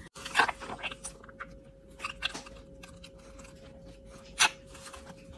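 Small clicks and rustles of a plastic candy-kit tray and squeeze dropper being handled, with one sharper click about four seconds in. A faint steady hum sits underneath.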